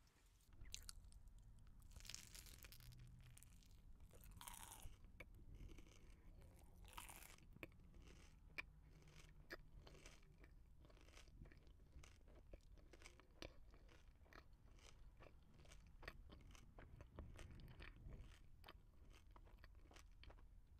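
Close-miked mouth chewing a sticky Rice Krispies treat: a soft, steady run of small crisp crackles and wet mouth clicks. Three short whooshes of noise come in the first seven seconds.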